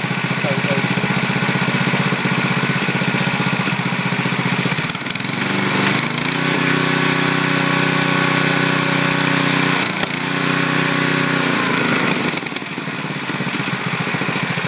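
8 HP Tecumseh single-cylinder engine running steadily. Its speed rises about five seconds in and drops back lower a couple of seconds before the end.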